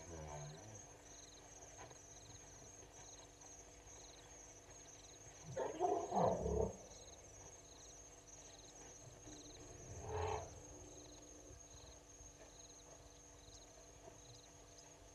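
Steady insect chirping with an evenly repeating pulse, broken by a few loud animal calls: a short call at the start, a louder string of calls about six seconds in, and one more about ten seconds in.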